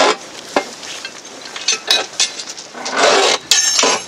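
Railway coupling link clinking and knocking against the drawhook between two vehicles, in irregular metal clinks, with a longer rattling scrape about three seconds in and a ringing clink near the end.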